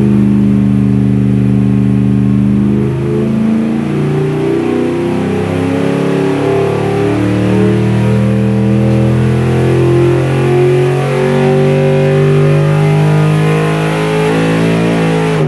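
LS3 V8 with its stock intake manifold, long-tube headers and a 102 mm throttle body, running under load on an engine dynamometer in a dyno pull from about 3,000 to over 6,000 rpm. It is loud and continuous.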